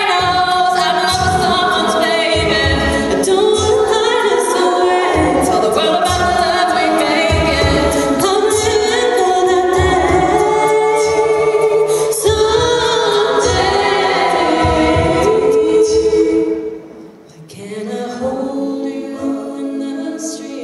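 All-female a cappella group singing in close harmony over a steady low beat. About sixteen and a half seconds in, the full sound cuts off abruptly. After a short pause a softer passage with fewer voices begins.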